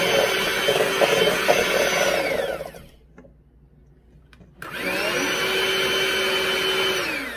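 Electric mixer beating a cookie batter of butter, cream cheese, sweetener and egg. Its whine falls away and stops about two and a half seconds in, starts again with a rising whine about a second and a half later, and winds down again near the end.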